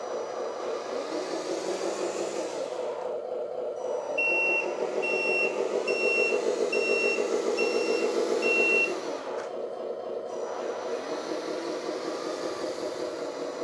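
LESU 8x8 RC dump truck driving with a steady drive sound. About four seconds in, its reversing beeper sounds six evenly spaced beeps, stopping near nine seconds.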